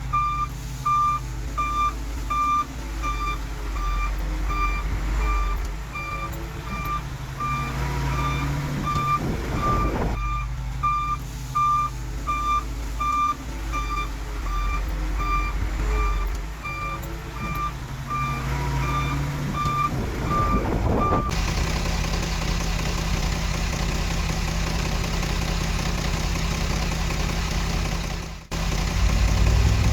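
Backup alarm of a reversing heavy machine beeping about twice a second over a diesel engine's low rumble. About two-thirds of the way through, the beeping stops abruptly and a louder, hissier engine noise takes over.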